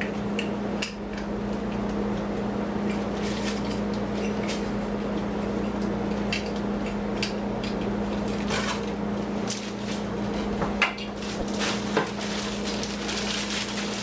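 Hard plastic vacuum accessory parts and tool-storage clips clicking and clattering as they are handled and snapped together, with a few sharper clicks near the end. A steady low hum runs under them throughout.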